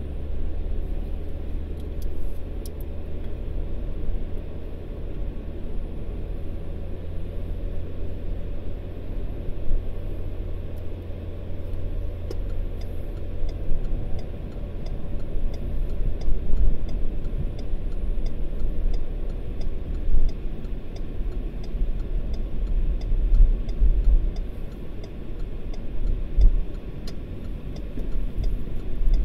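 Steady low road and engine rumble inside a moving car's cabin, with a few louder bumps. A light, regular ticking, about two a second, runs through the second half.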